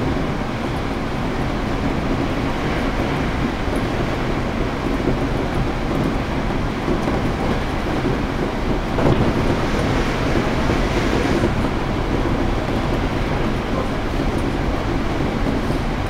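Running noise of a Hankyu 8300 series electric train, heard from inside the passenger car: a steady rumble of wheels on rail, a little louder for a couple of seconds past the middle.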